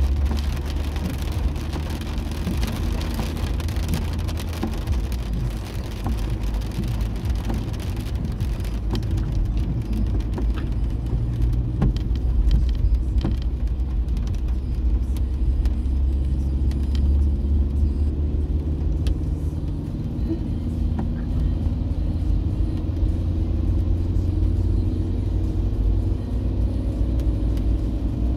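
A car's cabin noise while driving on a wet road in rain: steady low rumble of engine and tyres, with a hiss of wet-road spray that fades after the first several seconds. Near the end the engine's pitch rises slowly as the car speeds up.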